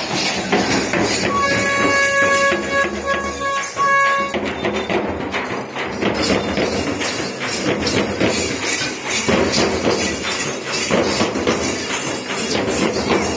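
Folk dance percussion: drums beating a fast, steady rhythm with jingling. A held note from a wind instrument sounds in three short blasts between about one and four seconds in.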